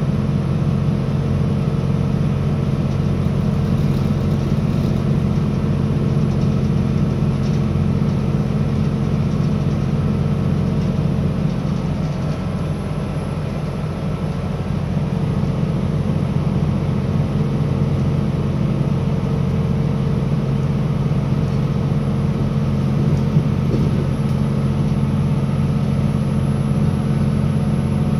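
Cabin noise inside a Northern Ireland Railways CAF Class 3000 diesel multiple unit running at speed: a steady low drone from the underfloor diesel engine and the running gear, easing slightly about halfway through.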